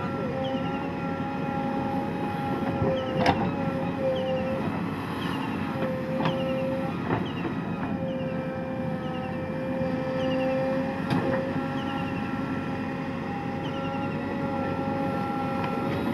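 JCB backhoe loader at work: a steady machine whine with a few sharp knocks.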